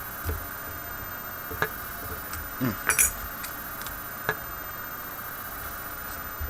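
Light metallic clicks and clinks of a lock pick and tension wrench working in the keyway of a Master Lock Pro Series 6850 padlock while it is being single-pin picked. There are a few scattered clicks, with a brief scrape and a quick cluster of clinks about three seconds in.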